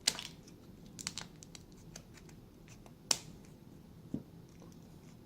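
Packaging of a new remote-key battery being handled and opened: scattered sharp clicks and crackles of plastic, the sharpest at the start and about three seconds in.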